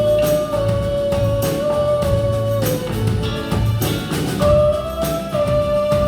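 Music: a song with a steady drum beat and bass under a long held melody note, which steps down about two and a half seconds in and rises again near the end.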